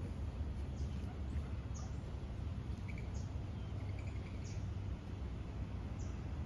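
Small birds chirping, about five short high chirps spaced a second or so apart, with a few fainter lower notes, over a steady low rumble.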